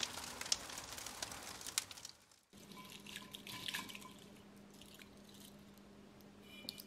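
Soft hiss with scattered faint clicks for the first two seconds or so. After a sudden drop, pine cones rustle and click faintly as a hand stirs them in a ceramic bowl, over a low steady hum.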